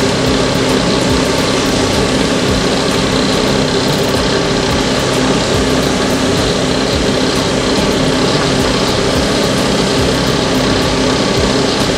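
Puff puff batter deep-frying in hot oil in a deep pot: a steady, loud sizzle with a constant hum running under it.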